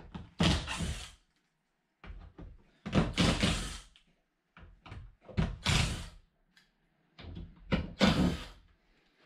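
Cordless drill run in short bursts of half a second to a second, about eight times with pauses between, backing the screws out of a cabinet door's hinges.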